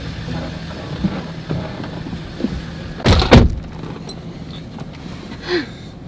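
Two pickup truck doors shutting in quick succession about three seconds in, over the steady hum of the idling truck, with lighter knocks and rustling as people climb into the cab.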